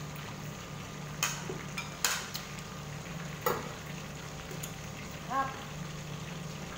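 Marinated fish frying in oil in a lidded pan, a steady sizzle. Sharp metal clinks from pot lids being handled come about a second in, about two seconds in and about three and a half seconds in, and a brief squeak-like tone follows near the end.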